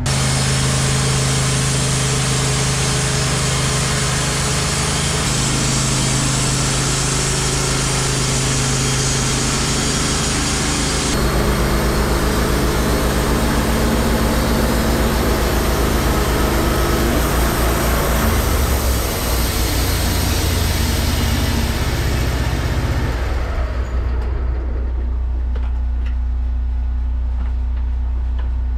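Wood-Mizer LT15 Wide bandsaw mill's engine running under load while the band blade saws through an eastern white pine log, a dense hissing whine over the engine. Toward the end the cutting hiss dies away as the cut finishes, leaving the engine running on alone.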